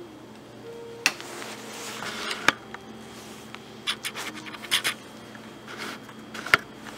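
Handling noise: a scraping rub starting about a second in, then several sharp clicks and short scrapes spread through the rest.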